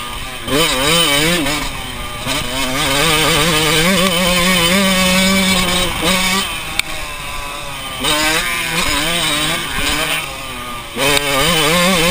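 Yamaha dirt bike engine being ridden hard, revving up and down in quick waves with the throttle. It holds a steady high pitch for a couple of seconds midway, then backs off and picks up again several times.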